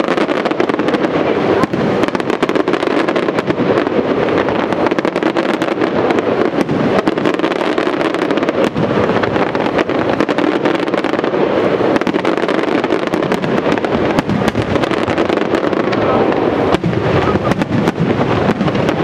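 Aerial fireworks shells bursting in a dense, continuous barrage: rapid overlapping bangs and crackling with no pause, loud throughout.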